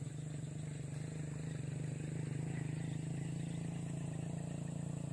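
A steady low motor drone, a little louder from about two seconds in, with a thin steady high whine above it.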